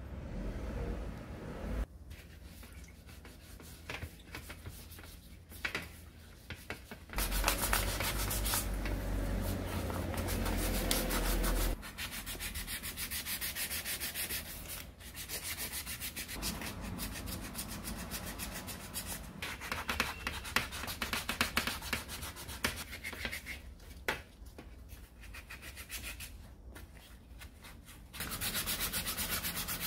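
400-grit sandpaper rubbed by hand over the blue plastic housing of an angle grinder: fast back-and-forth scratching strokes. They get louder for a few seconds a quarter of the way in, and again near the end.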